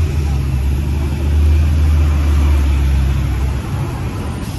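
Street traffic: a motor vehicle's engine running with a low, steady drone that drops away about three and a half seconds in.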